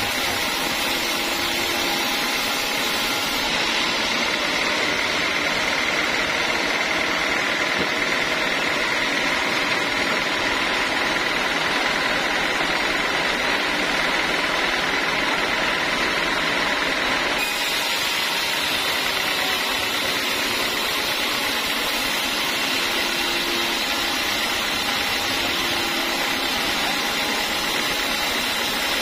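Large log band saw running steadily and cutting lengthwise through a teak slab: a dense, even machine noise with a faint high whine. The sound shifts slightly about two-thirds of the way through.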